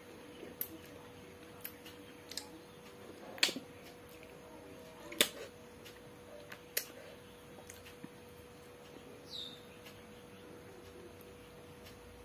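Eating by hand from a steel plate: scattered sharp clicks and smacks, the two loudest about three and a half and five seconds in, over a faint steady hum. A short falling high chirp is heard past the middle.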